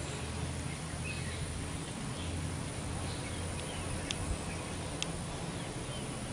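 Outdoor ambience over flooded grassland: a steady low rumble with a few faint, short bird chirps scattered through it.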